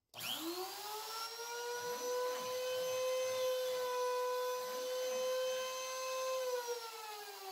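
A DIY CNC router's spindle, a router motor, spinning up with a rising whine, running at a steady high pitch while the bit is plunged down to drill a hole, then winding down with a falling pitch near the end.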